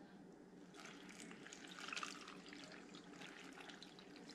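Water poured from a glass jar into a slow cooker crock, trickling faintly onto a beef roast and sliced mushrooms, starting about a second in.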